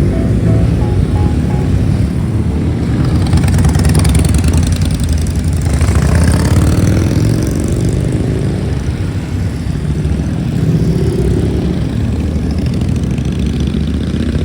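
Motorcycle engines running on the road, with the engine note rising and falling a few times.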